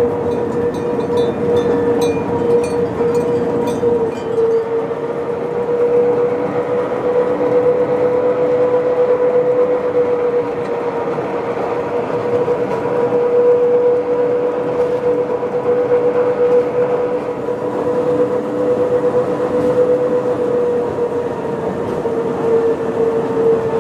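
Electric rack railcar of the Pilatus cog railway running on its toothed rack: a steady high whine from the drive, wavering slightly in pitch, over continuous running noise, with faint clicking in the first few seconds.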